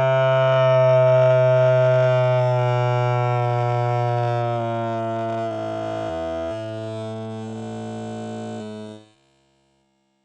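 The 'bruh' voice sound effect slowed down to an extreme degree: a long, held drone with many overtones, its pitch sinking slightly and shifting in a few steps past the middle. It dies away about nine seconds in.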